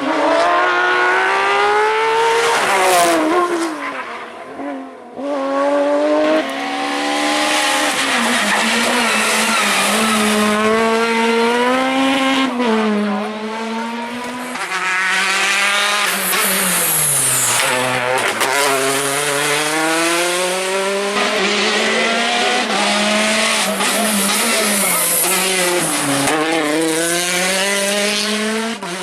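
Rally cars driven hard, one after another: the engines rev up through the gears, drop in pitch at each quick shift, and fall away under braking before pulling up again.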